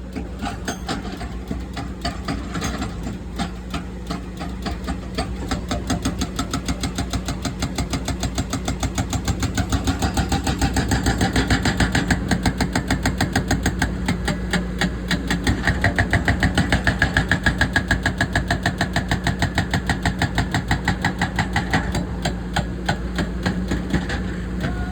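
A powered breaker hammering a concrete pile with a rapid, even train of blows, over the steady hum of an engine. The blows grow louder through the middle and ease slightly near the end.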